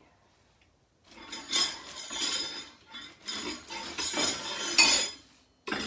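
Thin metal support poles clinking and rattling against each other as they are picked up and handled, starting about a second in.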